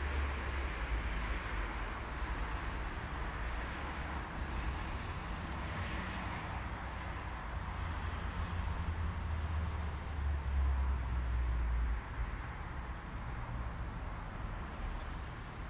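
Steady distant city traffic noise: a low, uneven rumble under an even hiss.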